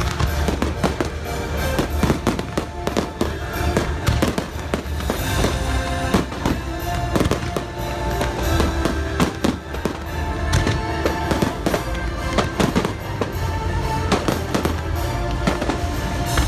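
Fireworks show: many sharp bangs and crackles in quick succession over a low rumble, with music playing throughout.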